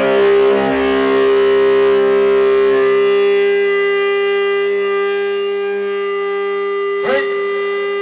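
A loud held tone at one unchanging pitch, rich in overtones, with a fainter lower note beneath it; it starts abruptly and does not fade or waver.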